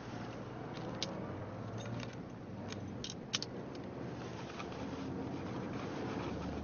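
Steady low hum inside a car, with a few small sharp clicks: one about a second in and two close together around three seconds in.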